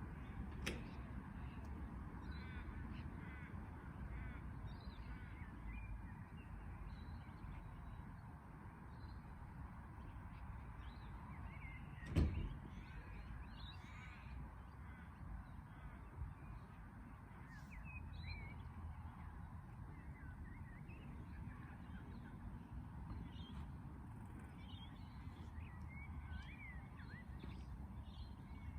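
Birds calling and chirping over a low steady background rumble, with a single sharp knock about twelve seconds in.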